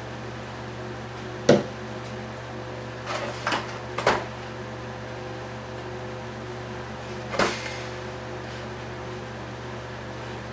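A few short knocks and rubbing sounds from handling a balsa part and the foam fuselage of a model airplane on a workbench, the sharpest about a second and a half in, over a steady hum.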